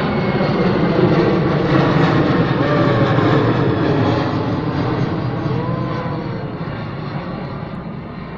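Boeing P-8A Poseidon's twin turbofan engines heard as the jet flies past, a steady roar that builds over the first second or two and then fades away as it moves off.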